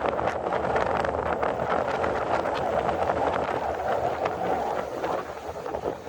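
Steady rushing noise of wind, rain and surf, with many small irregular taps like raindrops; it eases slightly near the end.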